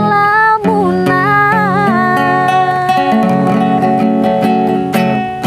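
A woman singing the drawn-out last word of a Javanese song over strummed acoustic guitar. The melody wavers, then settles into a long held final note.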